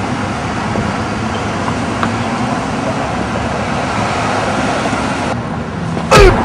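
Steady street traffic noise as cars pass. Near the end a sudden, short, loud burst with a falling pitch cuts in.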